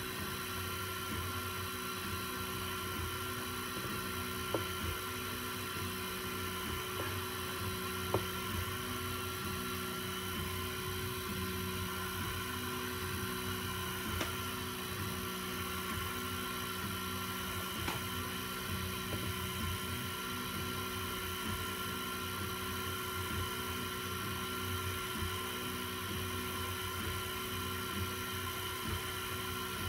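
i3-style FDM 3D printer running a print: its stepper motors whine in low tones that change pitch with each move, over the steady hum of its cooling fans. A few sharp clicks stand out.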